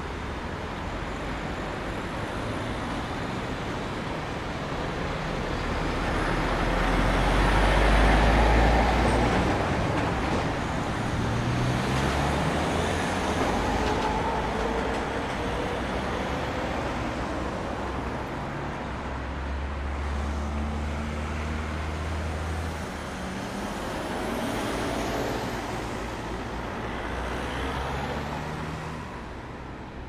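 Road traffic at a city street junction: a steady wash of vehicles passing, loudest as one goes close by about eight seconds in. Engines rise in pitch as vehicles pull away about eleven seconds in, and a low engine tone holds for a few seconds around twenty seconds in.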